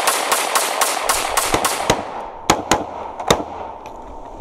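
A rapid string of gunshots, about six a second, echoing, then three single shots spaced apart a little past halfway through.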